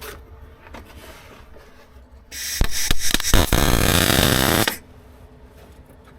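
Electric welder striking an arc and laying a short crackling weld of about two seconds on steel repair panels, starting with a few sharp clicks and cutting off abruptly.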